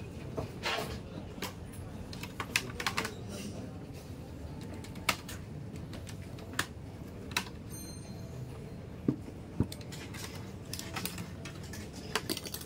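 A plastic pry pick is worked along the seam of an Asus Vivobook X1404V laptop's bottom cover, giving irregular sharp plastic clicks as the cover's snap clips come loose while the case is opened.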